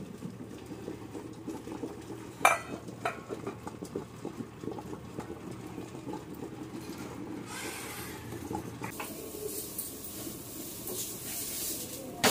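Kitchen utensils clattering: metal dishes and cutlery knock together, with a sharp clank about two and a half seconds in. A hiss builds over the last few seconds.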